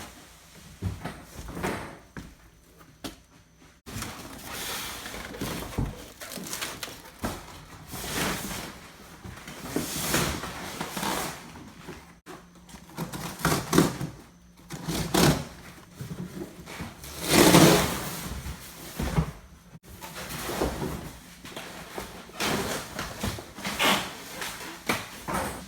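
Refrigerator packaging being handled: plastic and cardboard rustling and crinkling in a series of swells, with occasional knocks, loudest about two-thirds of the way in.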